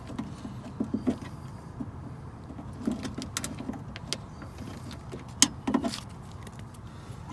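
Scattered clicks and knocks of screwdrivers and metal parts inside a car door as a window regulator is worked loose, some sharp, a cluster about halfway and another a little later.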